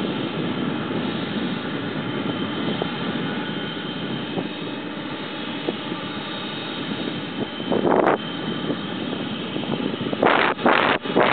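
The four jet engines of a Boeing 747 running steadily, with a thin high whine over the rumble, as the airliner rolls out on the runway after landing. Wind buffets the microphone about eight seconds in and again in several gusts near the end.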